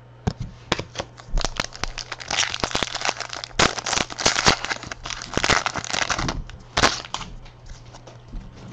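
Foil wrapper of a football trading-card pack being torn open and crinkled: a run of sharp crackles and rustles that stops about seven seconds in.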